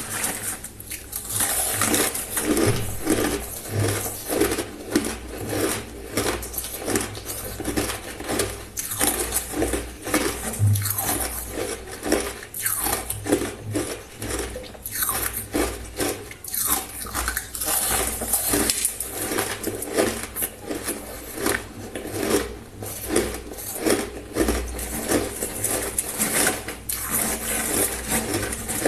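A person chewing ice, a continuous run of sharp crunches and cracks repeating every half second or so.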